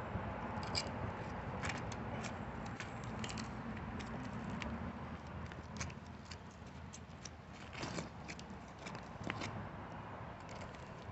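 Scattered, irregular small scrapes and clicks of hand-digging in dirt with a makeshift tool, loosening soil and debris around a buried bottle.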